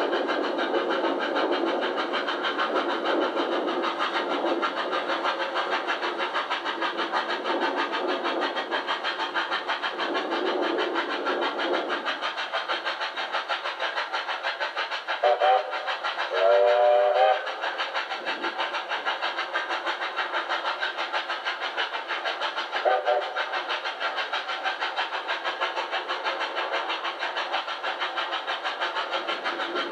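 Victorian Railways R class 4-6-4 steam locomotive working hard at speed, its exhaust beating in a rapid, even rhythm. A steam whistle sounds three times: a short toot about halfway through, a longer blast right after it, and another short toot a few seconds later. The sound is thin, with no deep bass, as played back from old video tape.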